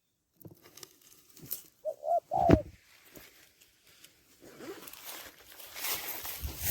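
A spotted dove gives a few short coos about two seconds in, amid rustling and crackling of dry straw that grows louder near the end.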